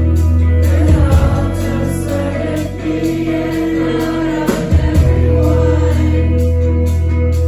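Live indie rock band playing: electric guitars, bass, drums and keyboard under a sung vocal, with a heavy held bass that shifts to new notes about a second in and again about halfway through.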